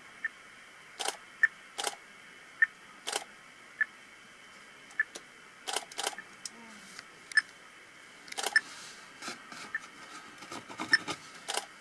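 Scattered sharp clicks and knocks, with a short high chirp repeating steadily about once a second.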